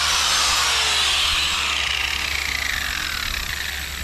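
Corded angle grinder on a mower-deck spindle's star shaft, switched off: its whine falls steadily in pitch as the disc spins down over about three seconds.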